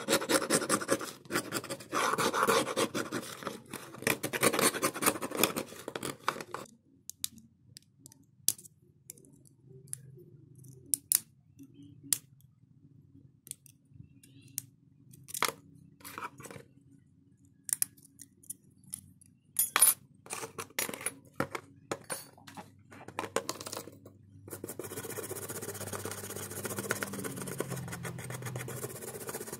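Pointed tweezers scraping grime off a Xiaomi Redmi 4A's mid-frame, a dense scratching that stops about seven seconds in. Then scattered light clicks and taps of the tweezers working on the bare circuit board, and from about 25 seconds a toothbrush scrubbing steadily.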